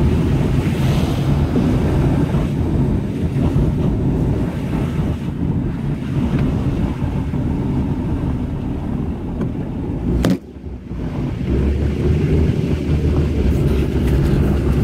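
Cabin noise of a car driving on a wet, hail-strewn street: a steady low rumble of tyres and engine. A sharp click about ten seconds in is followed by a brief drop in level.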